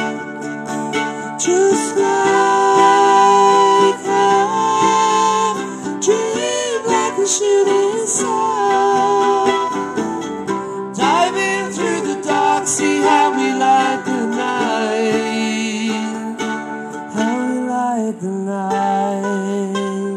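Live acoustic folk-pop music: a strummed acoustic guitar and a picked mandolin playing together, with a singing voice over them in places.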